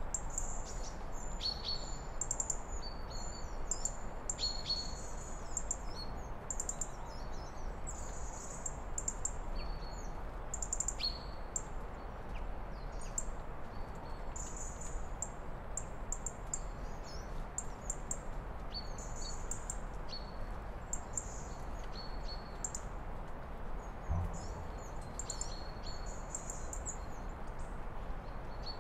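Small birds chirping repeatedly in short high calls over a steady low outdoor background noise. A single dull knock sounds about 24 seconds in.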